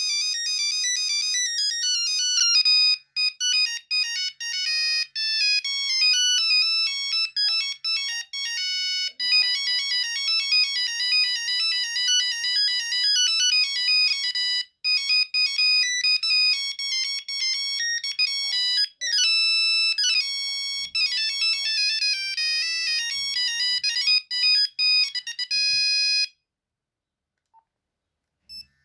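Nokia 3310 monophonic ringtone playing a fast melody, one note at a time. It cuts off about two and a half seconds before the end.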